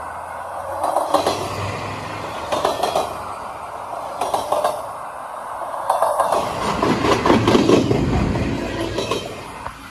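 Double-stack intermodal freight train of well cars rolling past close by, its wheel sets clacking over the rail joints in regular bursts about every second and a half. A louder, deeper rumble swells from about seven seconds in and eases off before the end.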